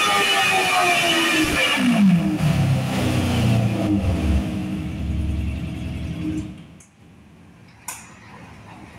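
Race car engine on a chassis dynamometer at high revs, then lifting off: its pitch falls steeply over two to three seconds as it winds down to a low, steady run. The engine goes quiet about seven seconds in, and a single sharp click follows about a second later.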